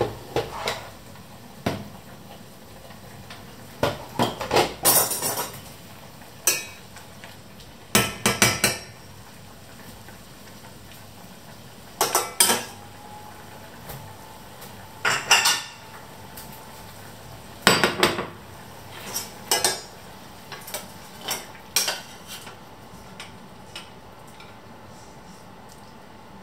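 Metal slotted spoon clinking and scraping against stainless steel saucepans and pots, in short clattering bursts every few seconds, over a steady low hiss.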